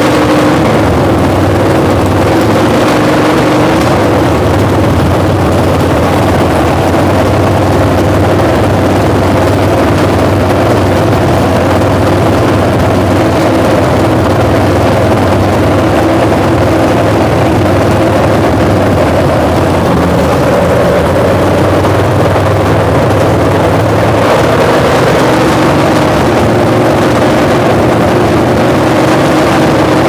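512 cubic inch big block Mopar V8 running on an engine run stand through open headers with no mufflers, in its first run after the build, steady and loud, its note shifting slightly near the end. The builders suspect it is running lean on a carburetor too small for it.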